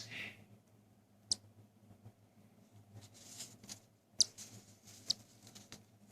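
Cockatiel chicks giving three short, faint high-pitched squeaks while being hand-fed, with soft hissy rustles between.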